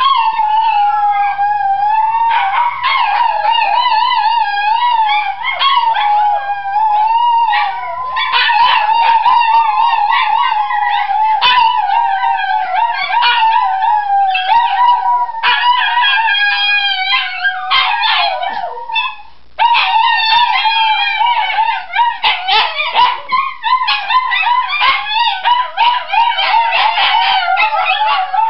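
Italian greyhounds howling together in chorus, several wavering howls overlapping almost without a break, with one short pause about two-thirds of the way through.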